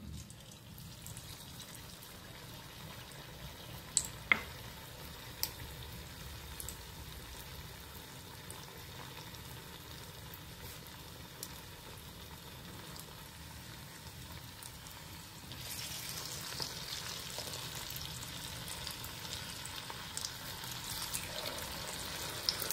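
Cornflour-coated stuffed potatoes deep-frying in hot oil in a kadhai, a steady sizzle. A few sharp knocks come about four to five seconds in, and the sizzle grows louder about two-thirds of the way through.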